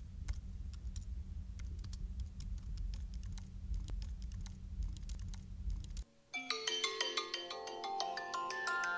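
Fingers typing on a wired Apple aluminium keyboard, a quick irregular run of key clicks, for about six seconds. After a short gap an iPhone alarm starts, a bright mallet-like ringtone melody of quick notes.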